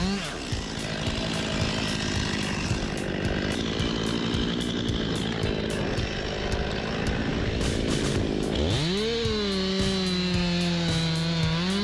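Chainsaw engine running at high speed, dropping back and then revving up sharply about three-quarters of the way through and holding at full throttle, over background music.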